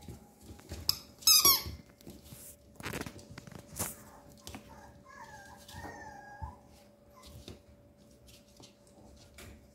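Papillon puppies playing, with high-pitched squeaks: one loud, shrill, wavering squeal about a second in, then a few softer wavering squeaks around the middle, among light knocks and scuffles.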